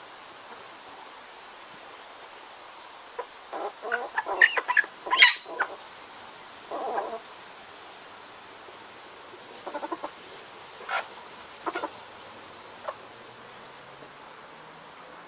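Domestic hens clucking in short bursts of calls: a busy run of notes a few seconds in, then a brief one and a few scattered calls later, over a faint steady hiss.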